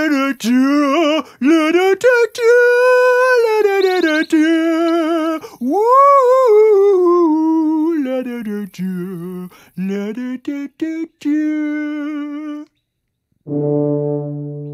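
A puppet character's voice singing wordless notes to lure in an unseen creature, the pitch wavering and gliding up and down, with short breaks. After a brief pause near the end, a low, steady horn-like tone of several layered notes comes in.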